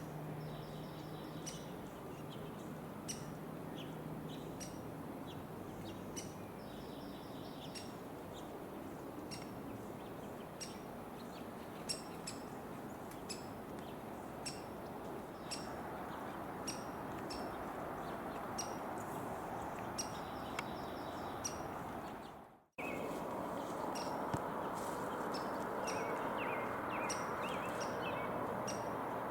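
Wild birds calling: many short, sharp chips and a few quick runs of repeated notes, over a steady outdoor hiss. The sound drops out for an instant about three-quarters of the way through, at an edit.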